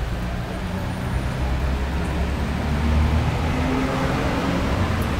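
Steady low rumble of city street traffic, with a passing vehicle's engine hum rising slightly in the middle.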